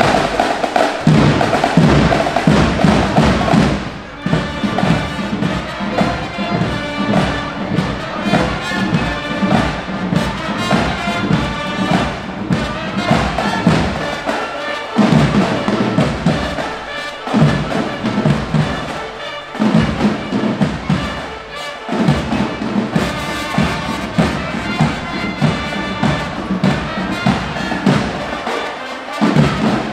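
High school marching band playing: trumpets and other brass with clarinets and saxophones over bass drums and snare drum.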